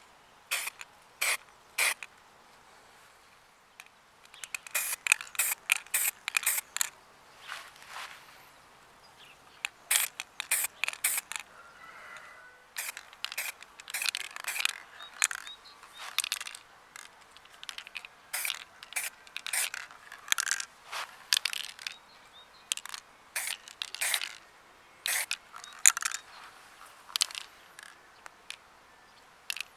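Irregular sharp clicks and short scrapes of hard objects being handled, coming in clusters with short quiet gaps.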